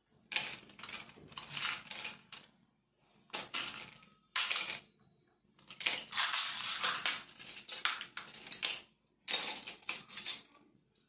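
Small metal brackets and strips, plastic wheels and other construction-kit parts clattering and clinking against each other as hands rummage through them in a box, in several bursts of a second or two.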